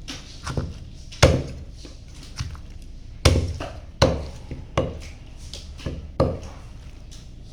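Knife chopping through chicken on a cutting board: about nine sharp chops at uneven intervals, four of them heavier blows.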